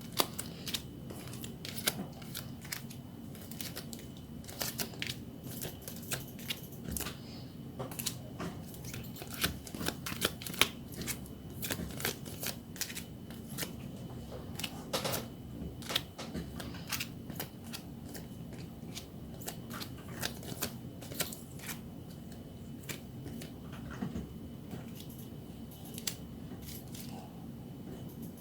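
Photocards and their plastic sleeves and packaging being handled by hand: many short, irregular crinkles and clicks, with no speech.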